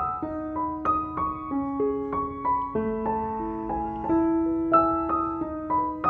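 Background piano music: a melody of single struck notes, each ringing on as the next begins.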